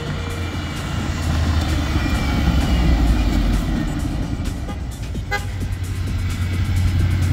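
Ford Mustang GT's 4.6-litre V8 running as the car drives and turns, its engine note swelling about two and a half seconds in, easing around five seconds and rising again near the end. Background music plays along.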